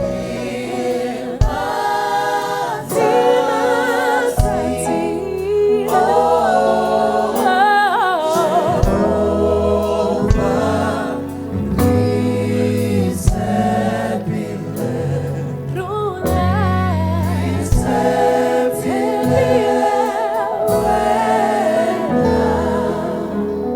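Gospel worship song: a choir singing with band accompaniment, getting quieter near the end.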